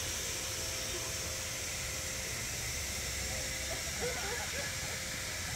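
Steady background noise: a low rumble with hiss, and faint distant voices from about four seconds in.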